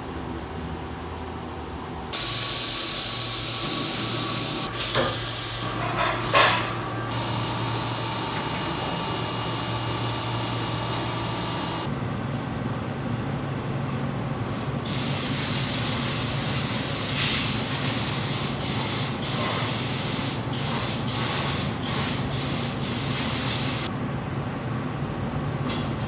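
Loud hissing spray that starts about two seconds in and stops near halfway, then comes back as a string of short on-off blasts, over a steady low machine hum.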